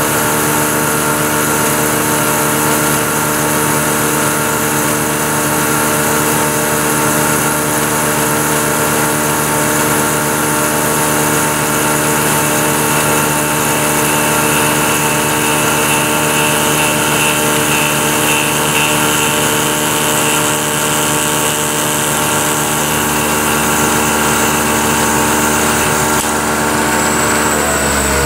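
Vertical milling machine running steadily as a small 0.094-inch end mill climb-mills the back side of a narrow slot. About a second before the end, the motor's hum slides down in pitch as the spindle slows.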